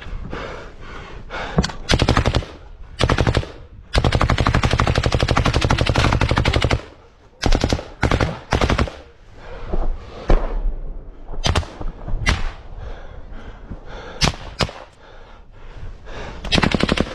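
Automatic rifle fire close to the microphone: a few short bursts, then one long burst of about three seconds, a run of quick short bursts, scattered single shots and one more burst near the end.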